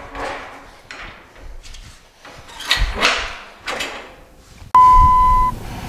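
Steel-mesh utility-trailer tailgate rattling and clanking as it is lifted and latched shut, in several short bursts, the loudest about three seconds in. Near the end a sudden steady beep, under a second long, is the loudest sound.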